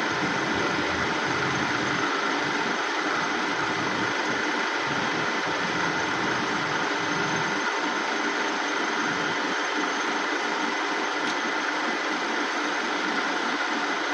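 Dufour 221 universal milling machine running, a steady, even mechanical whir that does not change.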